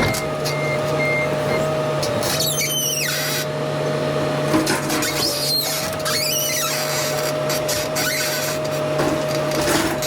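A machine running steadily, with several brief high squeals that rise and fall in pitch.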